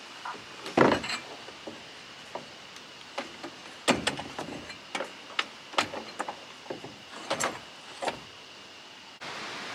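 Irregular knocks and clunks of a metal-framed solar panel being turned over and set down on wooden roof-rack boards, with lighter clicks of handling between them.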